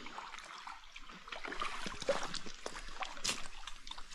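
Small rowing boat on the water: oar strokes splashing, with water trickling and sloshing against the hull and a few light knocks.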